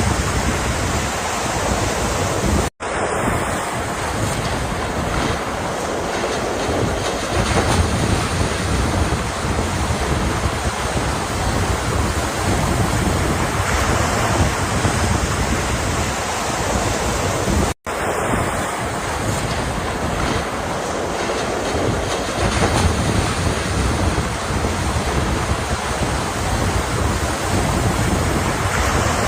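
Ocean surf breaking and washing ashore: a loud, continuous rush of water that swells and ebbs. The sound cuts out for an instant twice, about three seconds in and again about eighteen seconds in.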